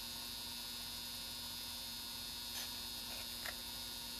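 Steady faint electrical hum with a thin high whine over it, and a few faint soft ticks a little past the middle.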